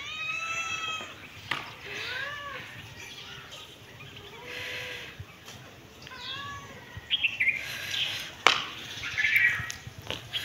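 A cat meowing several times in short, arching calls, the first the longest and highest. Quick high chirps come a little past the middle, and a few sharp clicks, one of them the loudest sound, come later.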